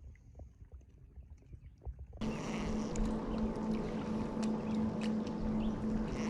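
Faint lapping and small clicks, then about two seconds in a steady motor hum with rushing water noise starts abruptly and runs on at an even pitch, typical of a boat motor running.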